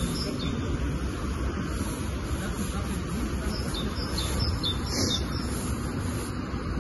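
Small birds chirping in short high notes, one call standing out about five seconds in, over a steady low rumble.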